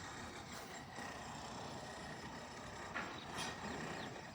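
Faint steady background noise, with a small knock about three seconds in.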